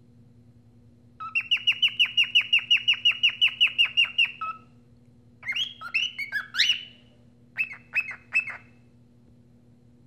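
A cockatiel whistling. It gives a fast run of repeated chirps, about six a second, for some three seconds, then a few rising and falling whistled notes, and three short chirps near the end.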